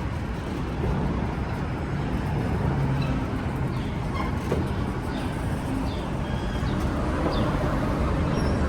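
Steady rumble of a steam-hauled excursion train in motion, with short high chirps scattered through it.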